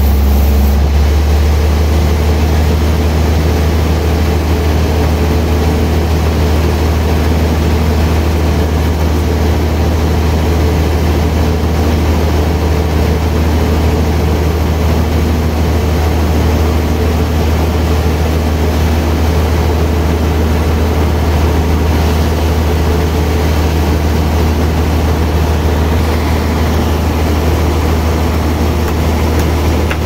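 Sawmill band saw running with a loud, steady low drone from its drive, while a large log is fed through it on the carriage.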